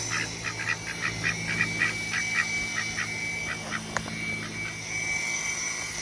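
Domestic white ducks quacking in a rapid run of short calls, about five a second, that fades out about halfway through.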